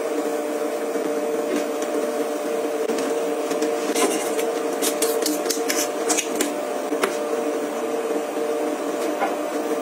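A small electric motor running steadily with a pitched hum, with a few light clicks and taps over the middle.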